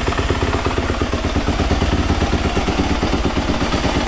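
Yamaha YZ250F four-stroke single-cylinder dirt bike engine idling steadily, warming up after a cold start with the choke off.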